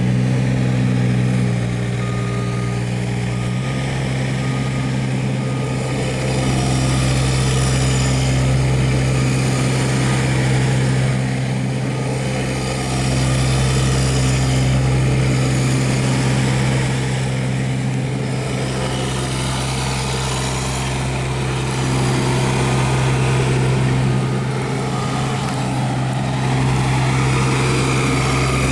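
Kubota U-17 mini excavator's diesel engine running steadily at constant speed, its sound swelling and easing every few seconds as the machine is worked.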